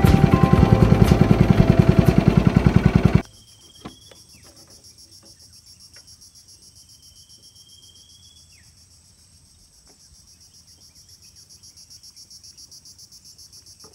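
Background music with a beat for about the first three seconds, cutting off suddenly. Then a faint, steady, high trilling chorus of insects from the riverside forest, with a long thin whistled bird call about halfway through.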